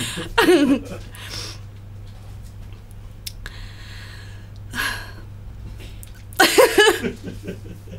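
A woman's soft laughter and breaths, with a short burst of voice about six and a half seconds in, over a steady low hum.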